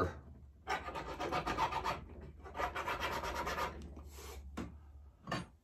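Jeweler's hand file rasping across the top of a tufa-cast sterling silver ring, filing the raised water-wave design to bring it out. It comes in three or four runs of quick back-and-forth strokes with short pauses between, the last one brief, near the end.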